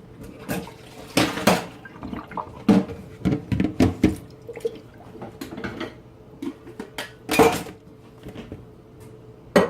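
A plastic container being handled at a kitchen sink: irregular knocks and clatters with water splashing and dripping as the loofah pieces' bleach-water soak is drained.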